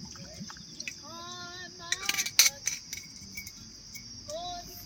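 Steady high-pitched insect chorus, with a cluster of sharp clicks or knocks about two seconds in and a few short voice-like calls.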